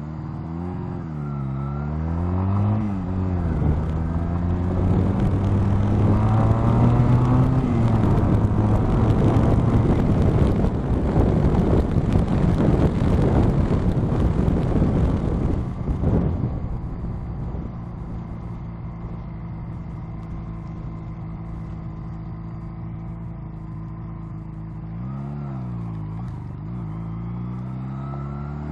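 Honda Rebel motorcycle engine revving up and down through gear changes, then pulling steadily higher, with heavy wind noise that drowns most of it for several seconds. The noise drops away suddenly about sixteen seconds in, leaving the engine at a steady idle, and it revs up and down again near the end.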